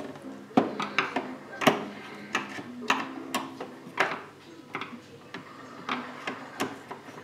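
Screwdriver working at the plastic casing of a Krups espresso machine: a string of irregular sharp clicks and knocks.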